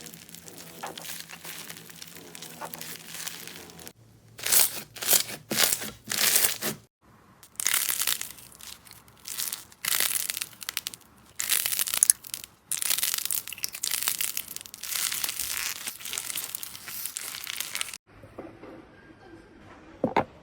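Slime being squeezed and pressed by hand, giving crackling, crunchy bursts that come irregularly. It is quieter at first, loud from about four seconds in, and fades back down near the end.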